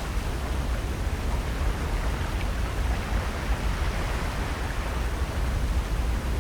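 Steady wash of ocean surf and wind at the shore, with a deep rumble underneath.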